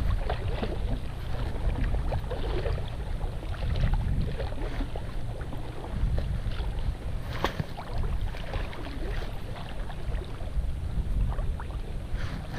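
Wind buffeting the microphone on open water, with small splashes and water lapping against the hull of a small boat; a sharper splash or click about seven and a half seconds in.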